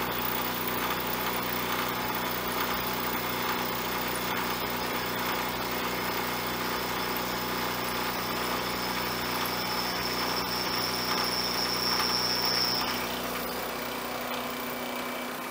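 Vertical milling machine running, its 3/4-inch end mill cutting a metal bar: a steady motor hum under a dense cutting noise. A thin high whine builds from about eight seconds in and stops near thirteen seconds, after which the cutting fades and the hum winds down.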